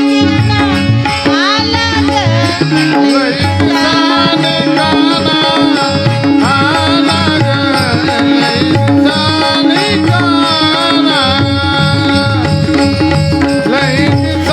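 Instrumental passage of a Marathi gavlan devotional song: tabla playing a steady rhythm under a wavering melody line over a held drone.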